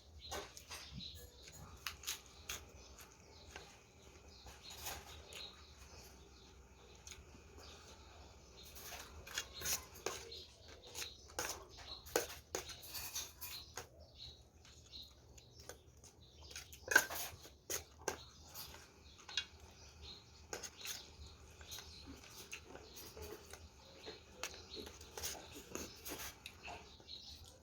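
Close-up eating sounds from someone eating a spicy rice-noodle salad with kimchi: irregular wet chewing clicks and mouth smacks throughout, with one sharper click about 17 seconds in.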